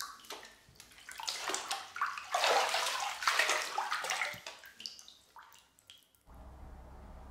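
Water sloshing and bubbling in a bathtub, loudest midway, as a person lies submerged. About six seconds in it cuts off abruptly to a steady low hum.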